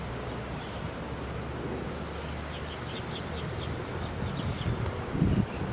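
Outdoor ambience: a steady low rumble, with a quick series of short, high bird chirps about halfway through. Louder low, rough noise comes in near the end.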